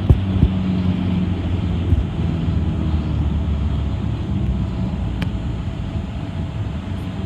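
City bus running, heard from inside: a steady low engine drone over road noise, with a few sharp rattles or knocks near the start and one about five seconds in. The engine drone eases off a little in the second half.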